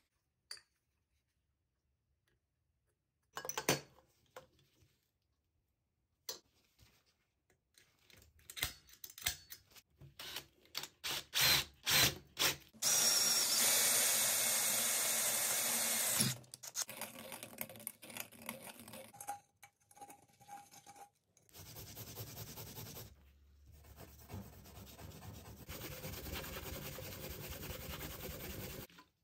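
Workshop handling clicks and knocks, then a cordless drill with a 20 mm hole saw cutting through an aluminium boost pipe for about three seconds near the middle. In the last several seconds an abrasive scouring pad is rubbed back and forth over the aluminium pipe.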